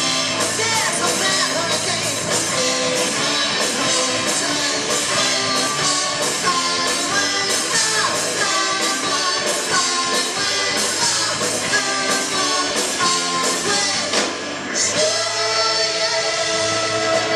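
Live rock band playing loud, with electric guitar, bass, keyboard and drums, and a bending lead melody over a steady beat. About fifteen seconds in the music drops out briefly and then comes back as a long sustained chord.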